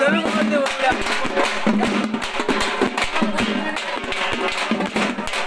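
Fast drumming, a dense, unbroken run of sharp strokes, with crowd voices under it.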